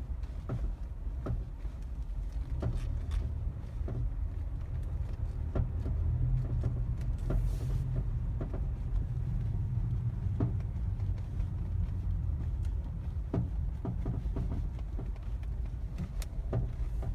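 Mazda 3 (BM) driving slowly over a bumpy surface, heard from inside the cabin: a steady low road rumble with scattered sharp knocks from underneath. The owner suspects the engine skid plate, which knocks only in freezing weather when snow or ice sets in its gaps.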